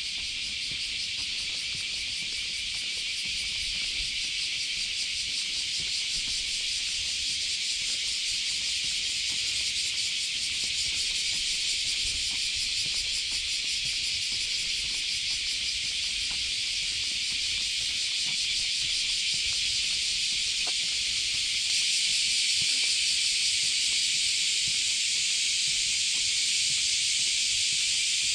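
Chorus of cicadas making a steady, dense high-pitched hiss, growing a little louder about three-quarters of the way through.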